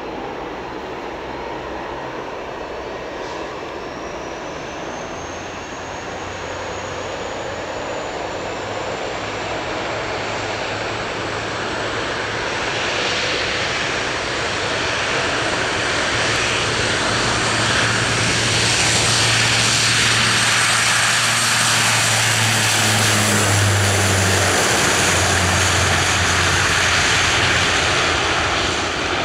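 Airliner engines getting steadily louder over the first twenty seconds or so and then staying loud, with a thin high whine gliding upward in pitch and a low hum underneath.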